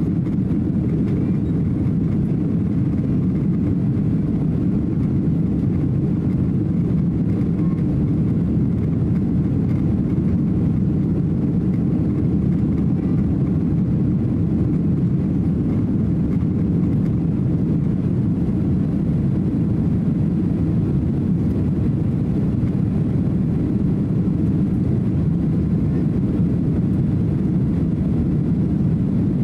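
Cabin noise inside a Boeing 767-300 climbing after takeoff: the jet engines at climb power and the rush of air over the fuselage make a steady low rumble that doesn't change.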